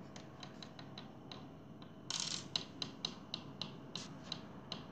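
Lego plastic pieces and a mini-doll figure being handled: a run of small clicks and taps, with a short louder scrape about two seconds in.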